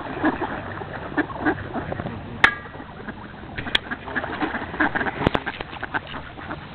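Many mallards quacking at once, a dense overlapping chatter of short calls, with a sharp, louder stroke about two and a half seconds in.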